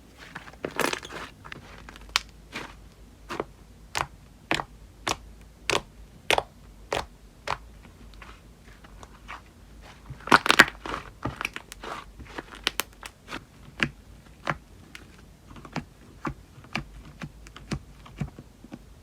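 Hands squeezing and poking slime, making sharp clicking pops roughly every half second to second. There are denser, louder crackling flurries about a second in and again about ten seconds in.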